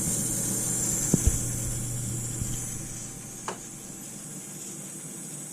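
High-pitched hissing whistle from an old budget computer power supply unit, over a low steady mains hum; the whistle weakens about halfway through. Two short knocks a little after one second in.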